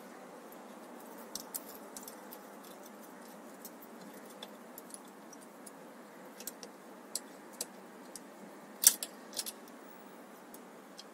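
Scattered light metallic clicks and taps of small bicycle rim-brake parts and tools being handled, with a louder clatter about nine seconds in, over a low steady hiss.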